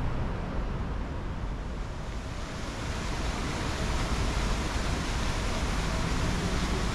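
Steady outdoor city ambience: an even rushing noise over a low rumble. About two and a half seconds in it turns brighter and hissier.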